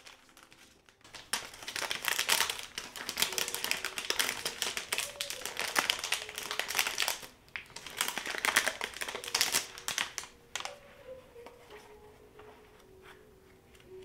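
Paper and packaging crinkled and rustled by hand in two long stretches with a short pause between them, then dying down to soft, sparse handling in the last few seconds.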